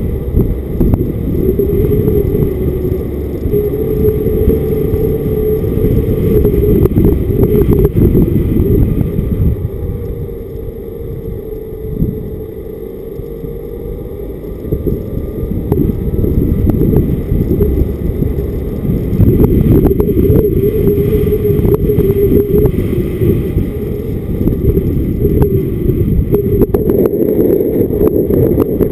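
A car driving along a road, heard through a camera microphone mounted on the outside of the car: heavy wind rumble with the engine note rising and falling underneath. It eases off for a few seconds about ten seconds in, then builds again.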